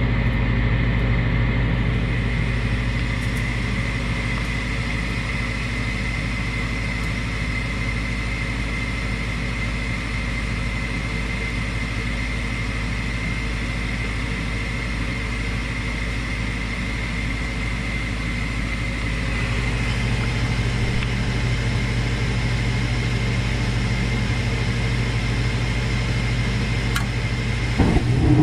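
Gas furnace's exhaust (draft inducer) blower motor running steadily with a high whine and a low hum, spinning freely now that the obstruction that stopped it has been cleared. About two-thirds of the way through, the sound grows a little louder and fuller.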